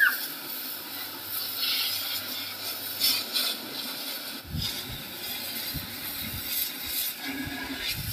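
Hissing water spray from a pressure washer striking a tractor's metal bodywork, with a short high chirp right at the start.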